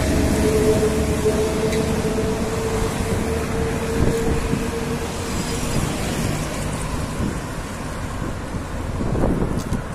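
Road traffic noise, with vehicles going by and a steady mid-pitched hum that fades out about six seconds in.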